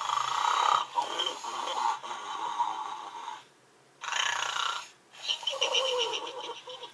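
Gund Arnold the Snoring Pig plush toy playing its snoring sound, in two long stretches with a short silent pause about three and a half seconds in.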